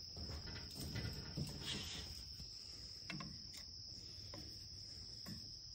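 Insects trilling in one high, unbroken tone, with a few faint knocks.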